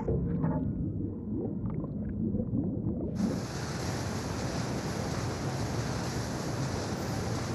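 Muffled underwater rumble with a few faint creaks and clicks. About three seconds in it cuts abruptly to a steady, full rush of wind and churning sea water from a steam-era destroyer running at speed through the waves.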